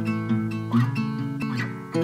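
Background music: acoustic guitar playing a gentle picked pattern.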